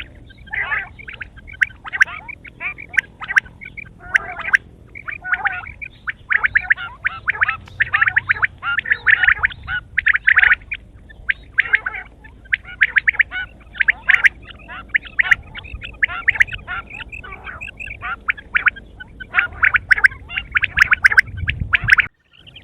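Quail calling in dense runs of rapid, stuttering chattering notes, with a brief sudden cut-out near the end.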